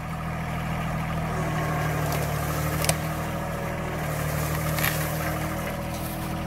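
John Deere 1023 compact tractor's three-cylinder diesel engine running steadily while working the loader grapple against a leaning tree. Two short sharp cracks come about three and five seconds in.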